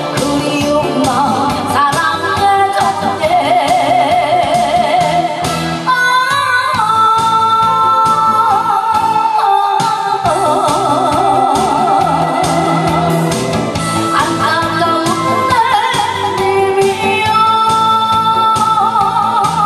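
A woman singing into a microphone over amplified backing music, holding long notes with vibrato.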